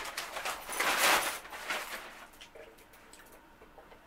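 Handling noise from a large plastic water jug being picked up and opened: a loud crinkling rustle about a second in, then a few light clicks and knocks fading away.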